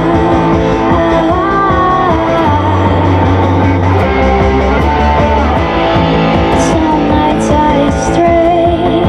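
Rock band playing live: guitar over held bass notes, with drums and cymbal hits.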